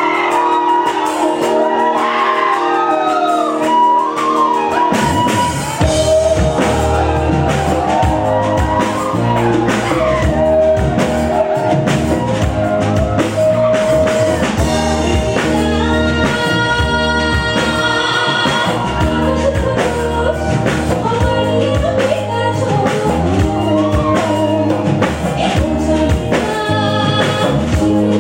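Live band music with a singer's voice carrying the melody; drums and bass come in about five seconds in and keep a steady beat.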